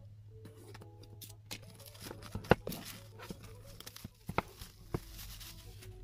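Plastic shrink wrap being cut with scissors and peeled off a cardboard box, crinkling and tearing, with a few sharp clicks, the loudest about two and a half seconds in.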